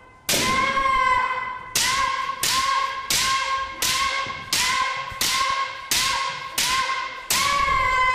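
Bamboo kendo shinai clacking in a quick series of about ten strikes, roughly one every two-thirds of a second after a longer gap at the start. Each strike comes with a held shouted kiai that fades before the next.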